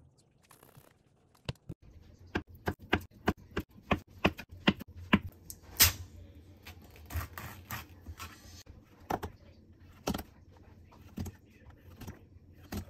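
Kitchen knife chopping on a bamboo cutting board, a quick run of knocks as a block of canned ham is sliced. Then the plastic film is peeled off a tofu tray, followed by a few separate knife knocks as the tofu is cut in its plastic tray.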